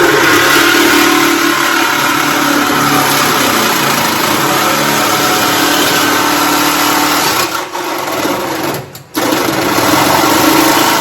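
Reciprocating saw (Sawzall) running at speed, cutting sheet metal, with a steady buzzing chatter. About eight seconds in it eases off and stops for a moment, then starts cutting again.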